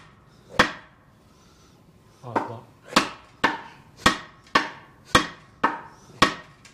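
Shovel head being knocked onto a new wooden handle: sharp wooden knocks, one, then after a pause of about two seconds a steady run of about two a second, driving the head on far enough that no nail is needed.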